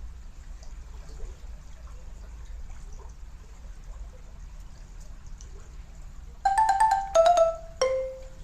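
Quiet outdoor ambience with a low rumble and faint small water sounds. About six and a half seconds in, an edited-in chime sound effect plays three bright mallet-like notes, each lower than the last.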